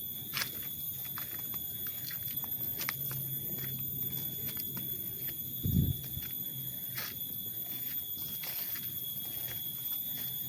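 Steady high-pitched insect chorus in tropical forest, with scattered clicks of footsteps on the trail and one dull thump about six seconds in.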